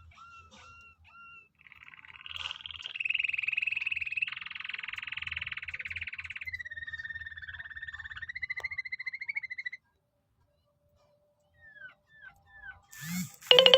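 Domestic canary singing: a few short whistled notes, then long fast rolling trills, then a sustained wavering whistle that breaks off about ten seconds in. After a short pause come a few quick down-slurred notes and a louder note right at the end.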